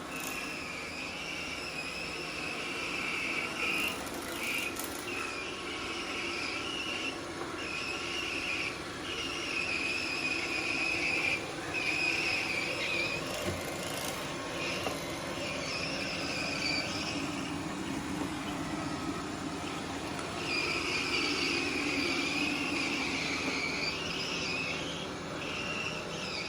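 Roborock S7 robot vacuum running, with a high-pitched, wavering squeak that comes and goes in stretches of one to three seconds over the steady noise of its motor and brushes. This abnormal noise is what Roborock support puts down to the stiff rubber of a new main brush, expected to fade with use.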